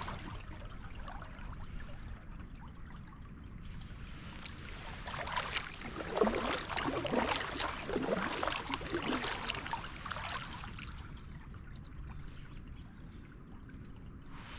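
Water trickling and dripping around a kayak on a river, with a busier stretch of small splashes and drips from about four to eleven seconds in, over a steady low rumble.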